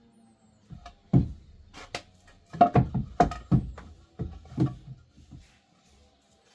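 A run of about ten irregular knocks and thumps over some four seconds, dull and heavy, with a few sharper clacks among them.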